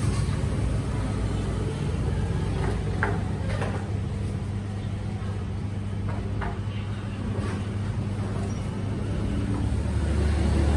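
Steady low engine rumble of road traffic, swelling near the end as a vehicle comes close. A few light clinks sound in between.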